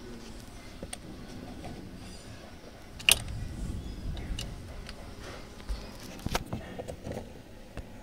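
Scattered clicks and small metallic knocks of a hand tool and loose parts as screws are undone beneath a car's steering column, with one sharp click about three seconds in, the loudest.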